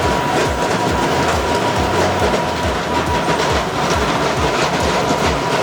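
Heavy machinery running with a steady rumble and an even, train-like clatter of about two to three knocks a second, over a steady high whine.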